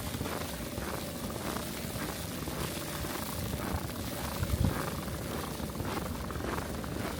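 Boots crunching through fresh snow at a steady walking pace, about two steps a second, over a steady low rumble of wind or distant traffic, with one heavier low thump about halfway through.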